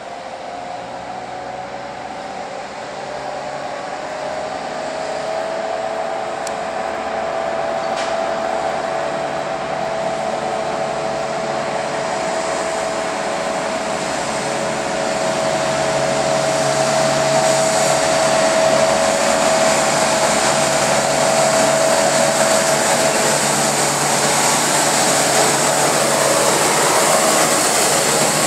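SŽ class 642 diesel shunting locomotive hauling a freight train, its engine running with a steady high whine over a lower drone, growing louder as it approaches and passes close by.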